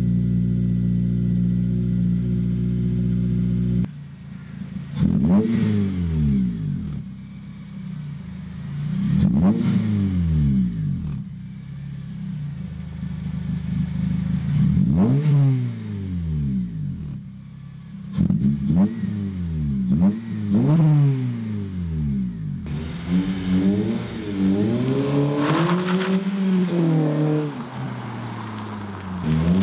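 Honda Civic Type R FN2's four-cylinder engine through a freshly fitted 3-inch exhaust. After a few seconds of music, the engine is revved while the car stands: single revs that rise and fall back, then several quick blips in a row. From a little past the two-thirds mark the car accelerates hard, the engine note climbing and dropping through the gears.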